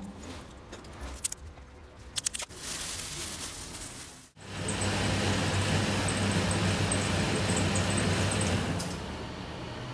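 Plastic packing tape and a plastic bag rustling, with a few sharp clicks. About four seconds in, an electric herb chopping machine starts up and runs with a steady hum and whir, dropping to a lower level near the end.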